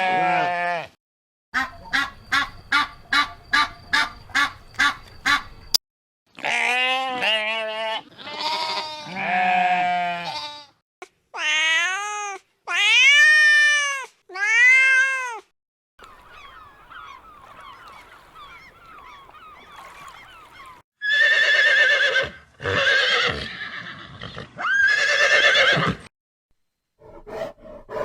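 A string of separate farm-animal calls with short gaps between them, among them wavering goat bleats. One run is about ten quick evenly spaced pulses, and three shorter arched calls follow the long wavering ones.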